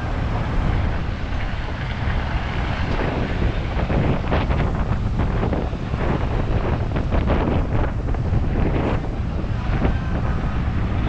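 Wind buffeting the microphone over a steady low rumble, with irregular gusts strongest in the middle.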